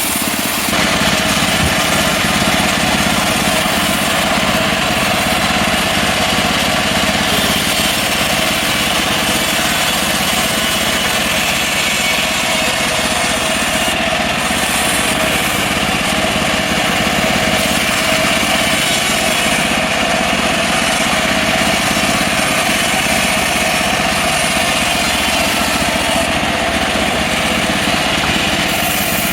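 Small petrol engine of a portable band sawmill running steadily at a constant speed while milling mahogany.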